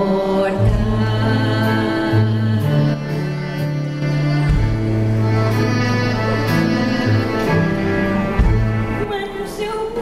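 A woman singing a slow song into a microphone, live with a band accompanying her, under long held low notes and sustained chords.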